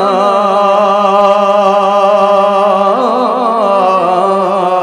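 A man singing a Bengali Islamic gojol through a microphone and PA, holding one long drawn-out note with a slight waver, moving to a new note about three seconds in.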